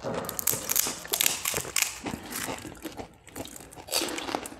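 Crisp, hollow panipuri (golgappa) shells crackling and crunching as they are cracked open with the fingers and bitten, a rapid irregular run of sharp crackles.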